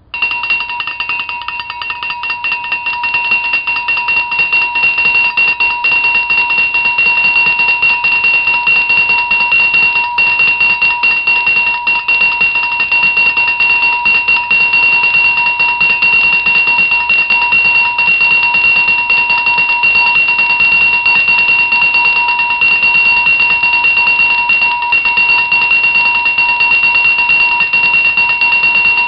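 Cowbell shaken by hand and rung fast without a break, starting suddenly and growing louder over the first few seconds, with a clear ringing pitch and a higher overtone over the rapid strikes.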